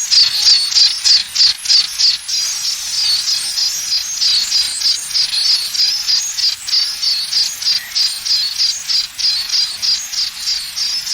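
High-pitched chirping that pulses about four times a second, a sound offered as a simulation of tinnitus (ear ringing); the pulses run closer together for a while in the middle.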